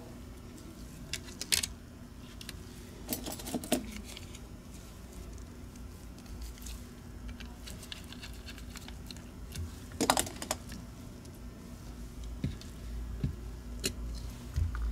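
Small plastic clicks and taps from a computer mouse's shell and internal parts being handled and screwed back together with a small screwdriver. A few sharper clacks are scattered through, over a low steady hum.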